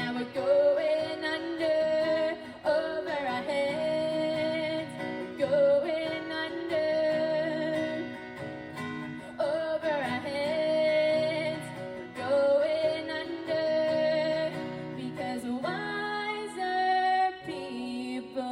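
A woman singing with an acoustic guitar behind her: long held notes, each one sliding up into pitch at its start.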